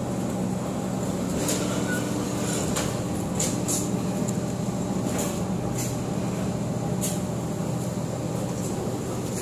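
Concrete-block machinery running: a steady motor hum with a few constant low tones from the block press and its chain conveyor. Short light clinks come every second or so, mostly in the first seven seconds.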